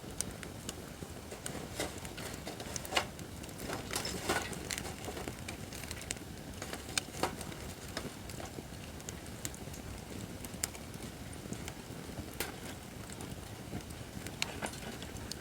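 Acacia firewood burning in a fire pit stand: a steady low rush of flame with irregular sharp crackles and pops from the burning wood.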